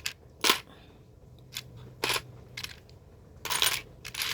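Small hard plastic marble-run pieces clicking and clattering as they are put down one at a time onto a plate, a handful of sharp clicks with a denser clatter near the end.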